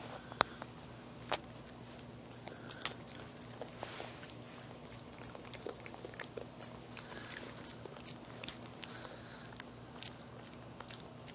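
Boston terrier biting and chewing a piece of raw carrot: irregular crunching clicks of teeth on the carrot, with two louder bites in the first second and a half.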